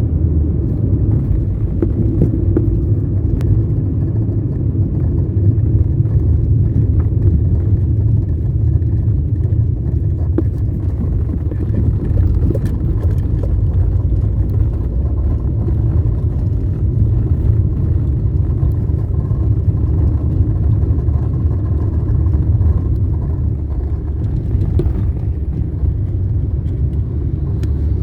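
Ford Fiesta hatchback with the Rocam engine, a steady low rumble with scattered short clicks and knocks. The car has a strange noise that a mechanic has not yet traced.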